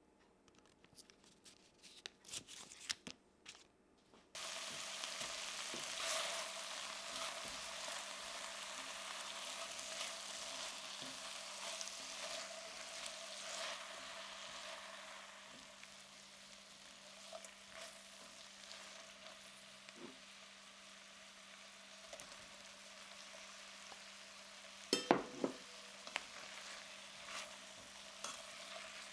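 A few light clicks of a knife cutting through a block of butter on a wooden board. Then, suddenly, about four seconds in, vegetables sizzle in a stainless steel frying pan as a spatula stirs them, with a cluster of sharp knocks against the pan near the end.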